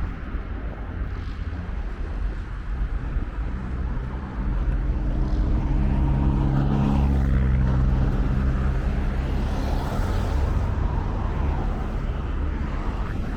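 Road traffic: a vehicle engine hums, swelling as it passes between about four and ten seconds in, over a steady low rumble.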